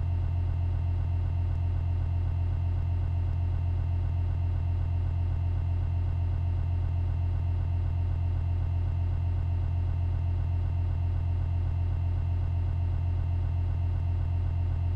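A steady, loud, low buzzing hum with a stack of overtones, unchanging throughout.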